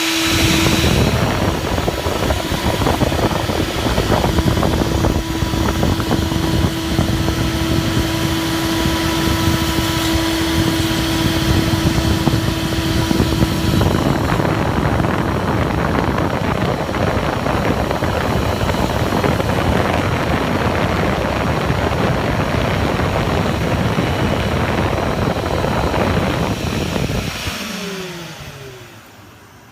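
CNC milling machine running, a loud steady machine noise with a held tone through the first half. Near the end it winds down, the noise fading as its pitch falls.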